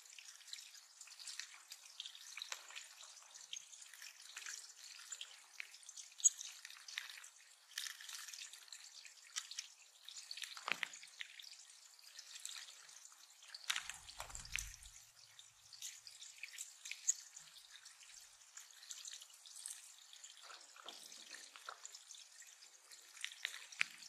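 Shallow bird pond with dripping and trickling water and small, frequent splashes from Tennessee Warblers bathing in it. A brief low thump comes about fourteen seconds in.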